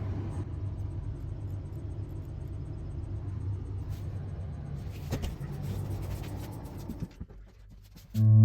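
A steady low hum that stops about seven seconds in, followed by a short quiet stretch with a few faint clicks; guitar music starts at the very end.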